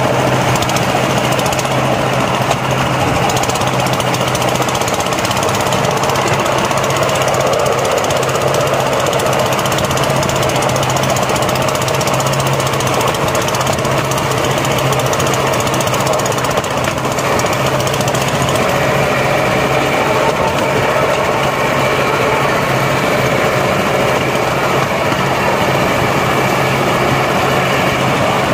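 A small motorized rail car's engine runs steadily with a dense, rapid rattling as it travels along the rails, with a constant low hum underneath.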